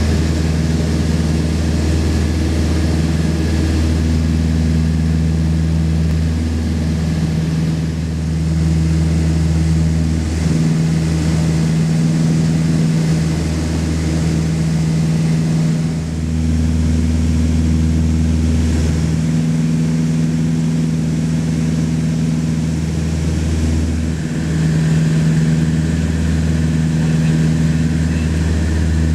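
Light aircraft's engine and propeller droning steadily in cruise, heard inside the cabin: a deep, constant hum with a few held tones that waver slightly now and then.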